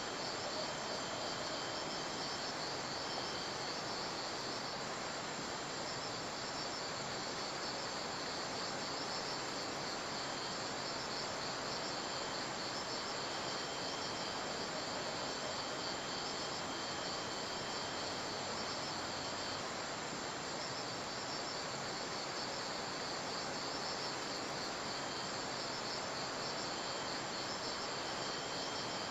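Insects chirping in steady pulsing trills over an even background hiss.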